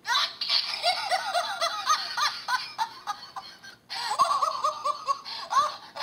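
Recorded laughter played from a handheld sound-effects gadget's tiny speaker, thin and tinny with no low end, in two bursts with a short break just before the four-second mark.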